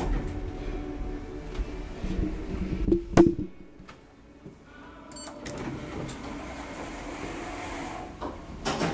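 Passenger elevator with sliding doors: a steady mechanical hum, a sharp knock about three seconds in, a brief thin beep around five seconds, then a steady hum again as the doors close, with clicks near the end.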